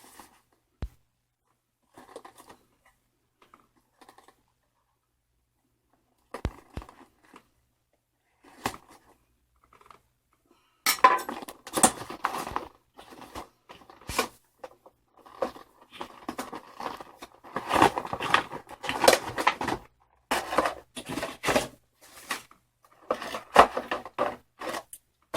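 Unboxing handling noise from a game controller's packaging: a few scattered taps and clicks, then from about eleven seconds in, sustained rustling and crinkling in irregular bursts.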